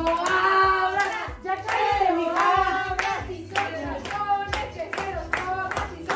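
Voices singing a melody while hands clap along to a steady beat, about two claps a second.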